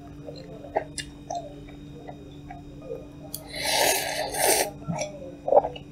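Korean cup noodles slurped in two long, noisy pulls about three and a half seconds in, after a few faint mouth clicks.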